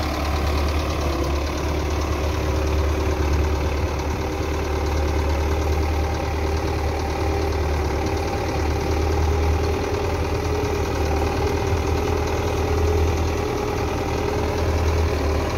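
Belarus 510 tractor's diesel engine running steadily under load, pulling a mounted potato planter.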